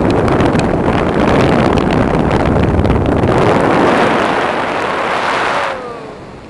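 Loud rushing wind from the airflow over the camera microphone of a paraglider in flight, gusting. It drops away sharply near the end.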